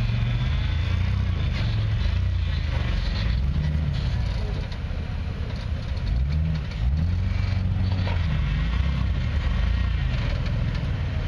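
Off-road vehicle engine running, its pitch rising and falling a few times as it revs up and eases off.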